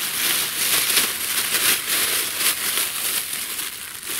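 Thin clear plastic bag crinkling and rustling continuously as it is handled with a bird carcass inside.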